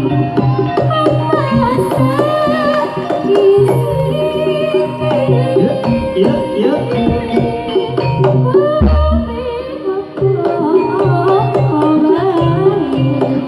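Live Javanese jaranan ensemble playing a langgam song. A female voice sings a wavering melody over kendang hand drums and sustained gamelan tones.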